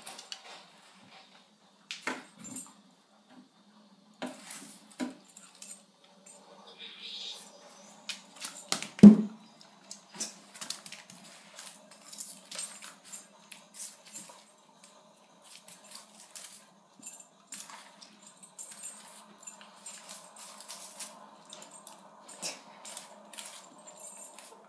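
Dog worrying a dropped onion across a hard floor, peeling it with its teeth: scattered small clicks, taps and scrapes, with one louder knock about nine seconds in.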